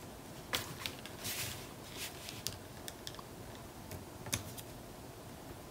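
Faint, scattered taps and rustles of paper strips being handled and pressed into place on a page, about half a dozen light clicks in the first four seconds or so.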